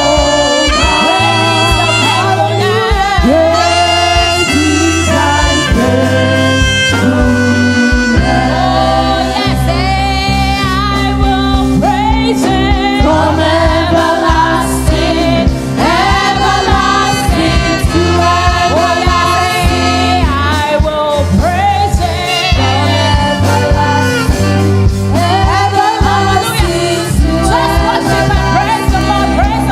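Gospel worship song: a praise team singing a flowing melody over steady instrumental backing with sustained bass notes.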